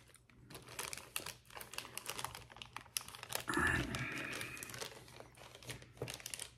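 Plastic instrument packaging crinkling and crackling with irregular small clicks as surgical instruments are handled.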